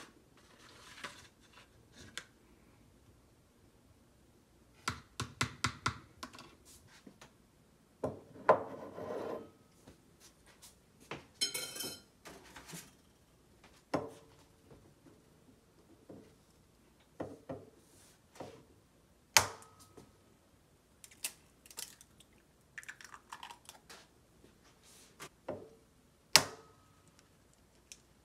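Kitchen work at a countertop: scattered knocks, taps and clinks on a ceramic mixing bowl and counter, some taps ringing briefly, with a quick run of clicks about five seconds in and a couple of short rustling stretches. Near the end an egg is knocked on the bowl and cracked into it.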